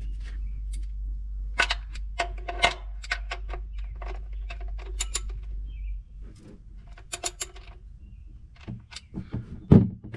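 Ratchet wrench with a 14 mm socket clicking in short runs as it works the oil drain plug loose, over a low hum that cuts off about six seconds in.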